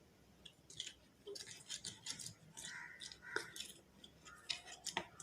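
Spoon stirring a thickening glue-and-paint slime mixture in a plastic container: faint, irregular sticky squelches and small clicks as the mix clumps together.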